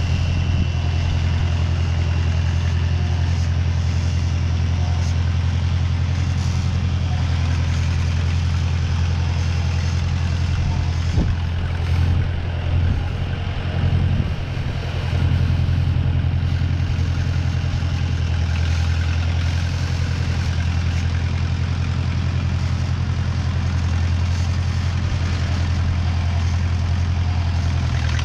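1956 Case 411 gas tractor engine running steadily, with a few knocks and a brief dip in level about halfway through.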